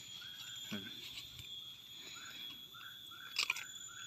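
A puppy chewing and crunching a crisp fried snack, with a sharp crunch about a second in and a louder one near the end. A steady high insect drone and short repeated chirps sound underneath.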